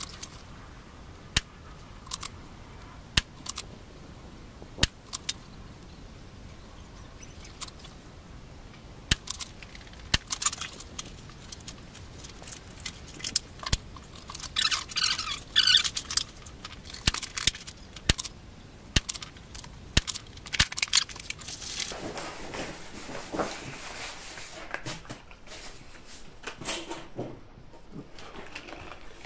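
A series of sharp, irregularly spaced clicks and knocks, with a burst of metallic rattling around the middle and rustling handling noise toward the end.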